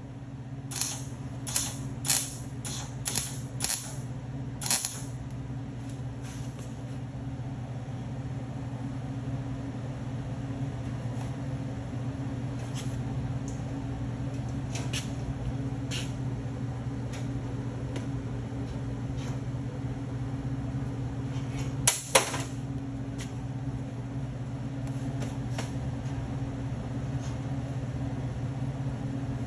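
Short tack welds being laid on sheet steel for a butt weld: a quick run of sharp crackling pops in the first few seconds, a louder double pop about 22 seconds in, and scattered single ticks, over a steady electrical hum.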